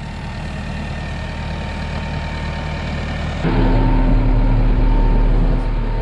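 Kubota tractor engine running steadily. About three and a half seconds in, the sound switches to inside the tractor cab: louder, with a deep, steady drone.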